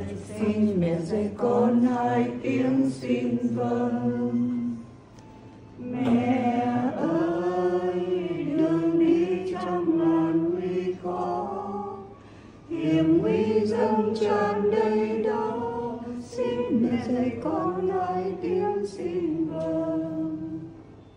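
A group of voices chanting a Vietnamese prayer together in unison, in three long sung phrases with short breaks about five and twelve seconds in.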